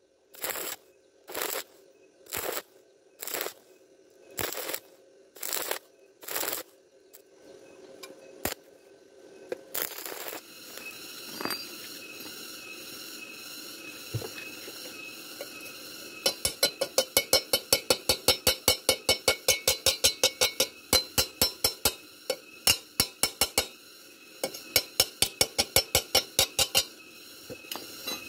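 Stick-welding arc struck in short bursts, about once a second, on thin square hollow iron: the stop-start technique used to keep from burning through. About sixteen seconds in, a chipping hammer starts tapping slag off the weld bead in quick metallic clinks, about four a second.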